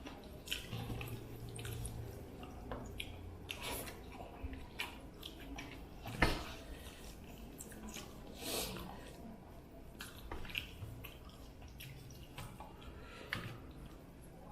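Quiet eating sounds: wet squishing and smacking of rice and fish curry being eaten, with scattered small clicks and one sharper click about six seconds in.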